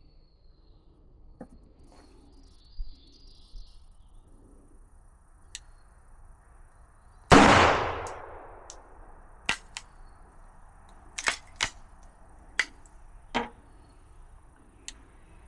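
A single .22LR pistol shot from a SIG Sauer Mosquito about seven seconds in, with a long echoing tail, followed by a scattering of shorter sharp clicks and clacks.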